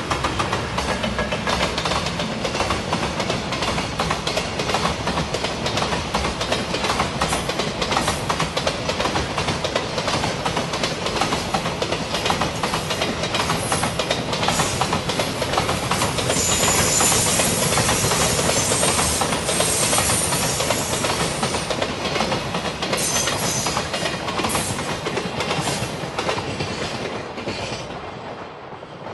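JR Freight EF210 'Momotaro' electric locomotive hauling a long container freight train past: a steady rumble and clickety-clack of wagon wheels over the rail joints. A high-pitched squeal rises over it for a few seconds midway, and the sound fades as the last wagons pass near the end.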